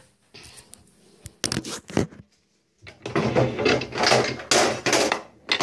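Handling noise close to a phone's microphone: a few sharp knocks as the phone is set up on a bathroom counter, then about two seconds of clattering and rustling as things are moved around on the counter, and one last knock near the end.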